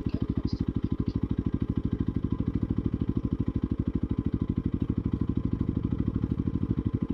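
Motorcycle engine idling: a steady, even low pulse at about a dozen beats a second.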